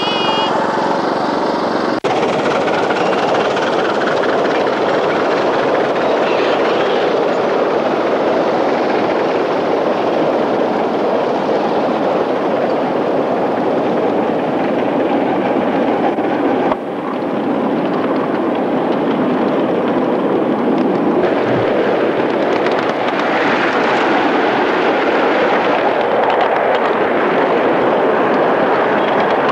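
Steady rumbling noise of ride-on miniature trains running on the track, wheels rolling on the rails. A short wavering whistle tone dies away in the first half-second. The rumble breaks off abruptly twice, about two seconds in and again past the middle.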